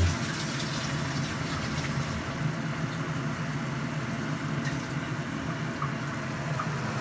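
Tomatoes, onion and garlic simmering in a wok, a steady bubbling sizzle with a low steady hum underneath.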